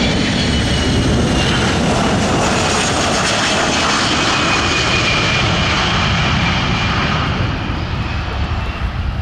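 A KC-135 Stratotanker's four turbofan engines run at power as the jet makes a low pass over the runway with its gear down. A high whine slowly falls in pitch as it goes by, and the noise fades near the end as it climbs away.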